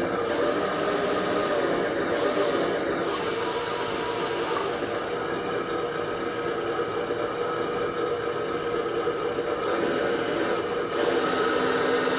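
Radio-controlled bulldozer's small electric drive motors and gears running with a steady whine over continuous scraping and grinding. The high hiss drops away for a few seconds in the middle and then comes back.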